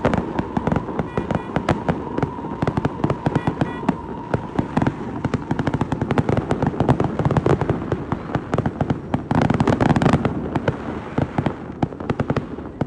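Fireworks going off in rapid succession: a dense, continuous run of bangs and crackles, many per second, thickest about ten seconds in.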